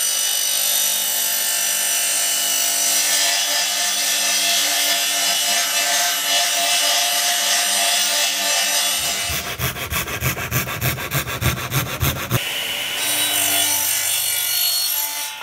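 Electric table saw running and cutting through a white wooden board. About nine seconds in the sound turns to a rapid pulsing, about four a second, for some three seconds, then a steady saw motor runs again.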